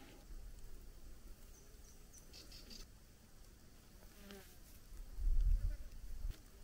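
An insect buzzing, with a low rumble about five seconds in that is the loudest sound.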